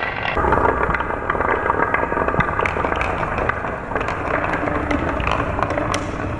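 Several glass marbles rolling and clattering down wooden zigzag tracks and curved plastic slope pieces: a steady rolling rumble with many small clicks as they knock against the track walls and each other.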